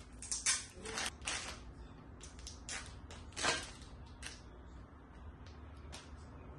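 Irregular light clicks and knocks of objects being handled, a few louder ones in the first four seconds and fainter ones after.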